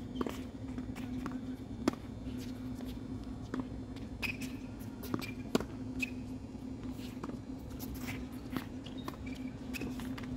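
Footsteps and shoe scuffs of a tennis player on a hard court, with scattered sharp taps and a few brief squeaks. A steady low hum runs underneath.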